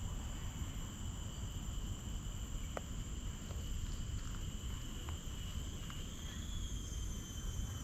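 A steady high-pitched insect drone, several sustained tones at once that waver slightly about six seconds in, over a constant low rumble. A couple of faint clicks sound in the middle.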